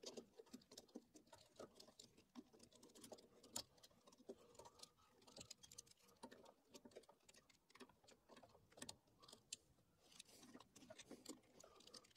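Faint, irregular clicks and ticks of a hand screwdriver tightening the router mount's bolts into their T-nuts.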